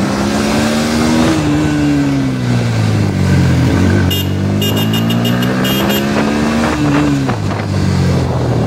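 Motorcycle engine heard from the rider's seat, its pitch climbing and falling twice as the rider accelerates and eases off, with a short drop about four seconds in. A run of short high ticks sounds between about four and six seconds in.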